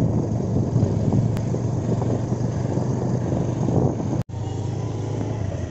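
Steady rumble of a vehicle driving along a paved road: engine hum and road noise. It cuts out briefly about four seconds in, then carries on a little quieter.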